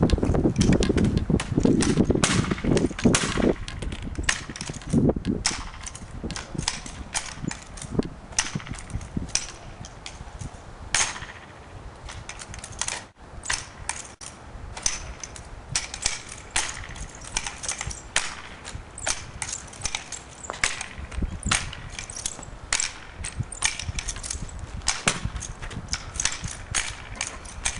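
A handheld object clacking sharply and irregularly, often several times a second, as it is swung and caught. In the first few seconds a low rumble runs under the clacks.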